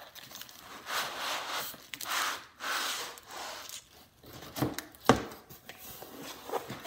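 Cardboard packaging sliding and scraping in several swells as a laptop's inner tray is pulled out of its shipping box, with a sharp knock about five seconds in.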